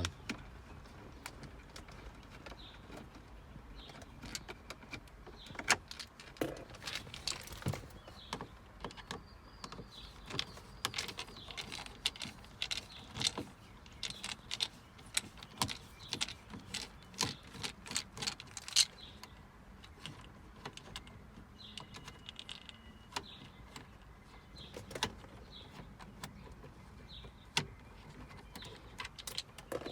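Phillips screwdriver turned by hand, backing screws out of the plastic glove-box trim: irregular clicks, small knocks and scraping, with a few brief faint squeaks.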